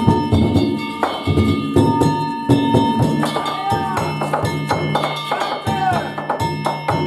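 Danjiri festival music: a taiko drum beaten alongside rapidly struck, ringing hand gongs (kane), in a dense, steady rhythm. Two short sliding tones sound in the middle.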